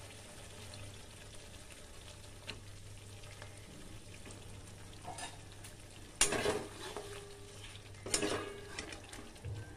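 Chicken pieces cooking in korma gravy in a metal kadai with a low, steady sizzle. From about five seconds in, a spatula scrapes and stirs against the pan in a few short strokes, the loudest about six seconds in.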